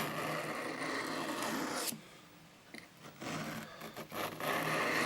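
Penknife blade scraping along a small water-wetted whetstone in a sharpening stroke lasting about two seconds, then a short pause and a second stroke.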